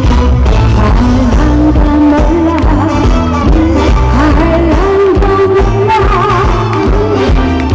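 A woman singing a Korean song live into a handheld microphone, with a melodic vibrato-laden voice over a recorded accompaniment with a steady beat, played loud through the stage PA speakers.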